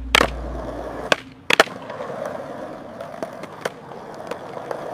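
AI-generated skateboard sounds: several sharp clacks of the board as a kickflip pops and lands, the loudest pair about a second and a half in, with the wheels rolling on concrete between them.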